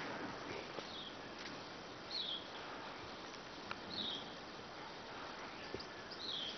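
A short high call that slides downward repeats four times, roughly every two seconds, from an unseen animal, over a steady background hiss. A few faint sharp clicks fall in between.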